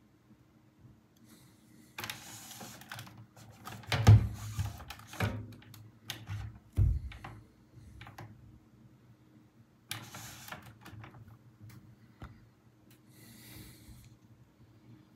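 Hand-handling noise: scattered clicks, taps and rubbing of fingers on a clear plastic coin capsule as it is turned, with two louder low thumps about four and seven seconds in.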